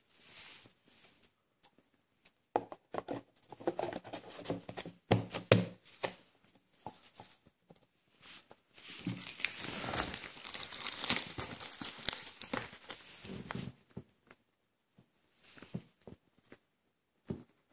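Cardboard box and packaging being handled: scattered knocks and clicks, then a few seconds of steady crinkling of packaging from about the middle.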